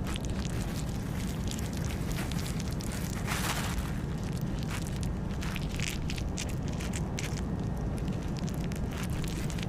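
Crackling and rustling in dry leaf litter or twigs, many short irregular crackles with a denser rustle about three and a half seconds in, over a steady low wind-like rumble.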